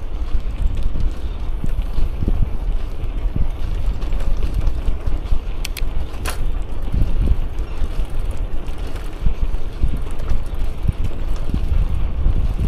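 Wind buffeting an action camera's microphone on a moving bicycle: a steady low rumble, with two sharp clicks about six seconds in.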